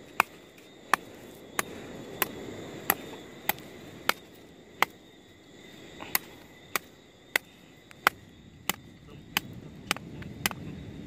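Machete chopping at a dry stick held upright against the ground, sharp regular strikes about every two-thirds of a second with a short pause around the middle.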